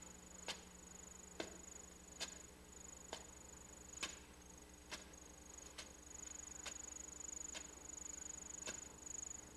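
Crickets trilling steadily in a high pitch, with sharp, evenly spaced taps a little under one a second: slow footsteps on a wooden walkway.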